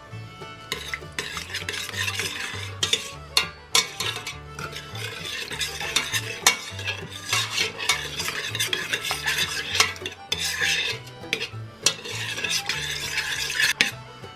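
A metal spoon stirring and scraping tomato paste and water in a stainless steel pressure cooker pot, with frequent clinks of the spoon against the pot, breaking up the lumps of paste.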